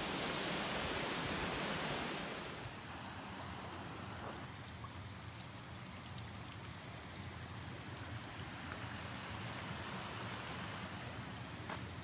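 Loud, even rushing noise for about two seconds, then a shallow stream running gently over a shallow bed, with a few faint high bird chirps.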